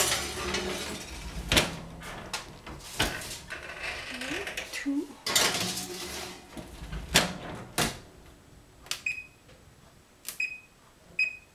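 Metal clattering and several sharp knocks as a pan goes into the oven and the oven door is worked. Near the end come three short electronic beeps from the oven's timer buttons as the bake time is set.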